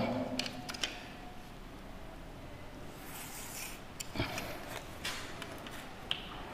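Faint scraping of chalk drawn along the edge of a set square on a blackboard, with a few light knocks as the set square is placed against the board. A short high chirp comes near the end.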